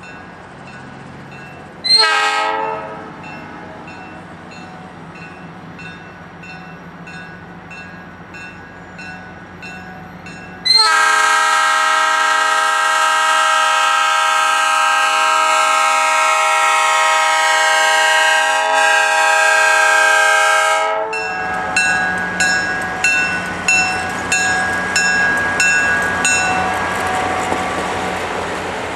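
Diesel locomotive's multi-note air horn: a short toot about two seconds in, then a long blast of about ten seconds. A bell dings steadily throughout, and after the horn stops the train rolls past with its wheels clacking rhythmically.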